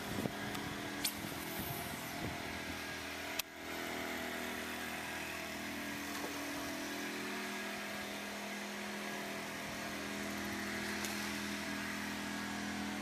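A boat motor running steadily with an even hum, with a couple of short clicks in the first few seconds.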